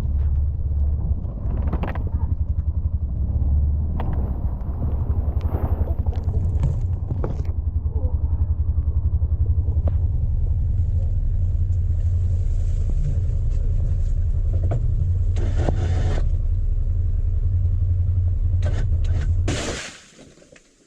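Can-Am Defender side-by-side engine running steadily under plowing, with occasional short knocks and scrapes over it; the sound drops away near the end.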